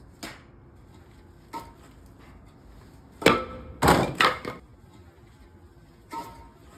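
Hand splitting axe striking and splitting firewood on a chopping block: sharp wooden knocks and cracks, single lighter blows near the start, about a second and a half in and near the end, and a cluster of three loud ones a little past the middle.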